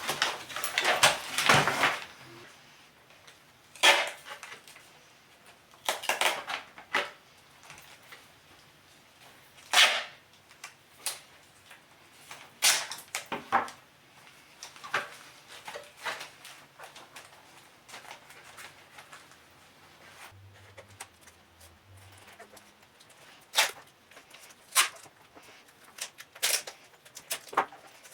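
Adhesive tape being pulled off the roll in repeated short, sharp rips while it is wrapped onto RC car wheels to make drift tires.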